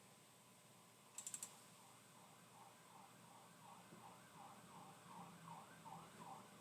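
Near silence with a quick run of four computer keyboard or mouse clicks about a second in. From about halfway through comes a faint warbling tone that repeats about three times a second.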